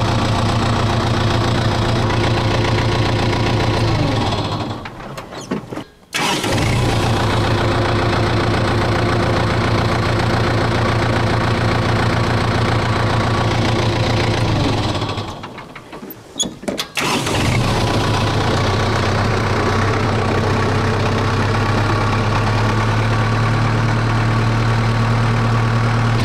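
Kubota tractor's diesel engine running steadily while its front loader carries a truck cab. Twice the engine note slides down and dies away, then comes straight back at full level.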